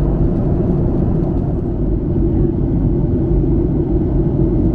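Steady engine and airflow noise inside an airliner cabin on approach, with a constant low hum and rumble.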